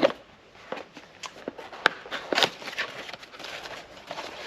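A boxed replacement car door handle being unpacked: irregular rustling, crinkling and sharp clicks and taps as the packaging is opened and the plastic parts are handled, with one sharp click a little under two seconds in.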